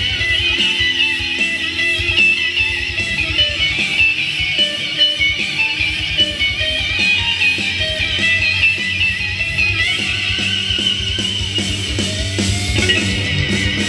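Electric guitar playing a clean lead melody with bending notes through an EarthQuaker Devices Astral Destiny octave reverb pedal, over a heavy rock backing of bass and drums.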